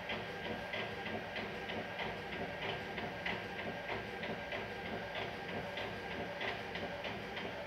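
Epson L120 inkjet printer printing a page: a steady mechanical run with regular ticks about three times a second.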